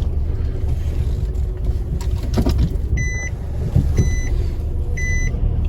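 A car creeping along with a steady low rumble. About three seconds in, the car's electronic warning beeper starts, giving short high beeps once a second.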